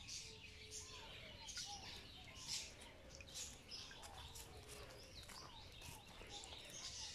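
Faint chirping calls: short arched notes repeating about every half second, with scattered faint high ticks.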